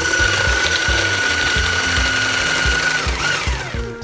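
Bosch electric hand blender with a whisk attachment running at a steady speed with a steady whine, whipping koki bean batter in a plastic bowl to make it frothy. It winds down near the end. Background music with a steady beat plays underneath.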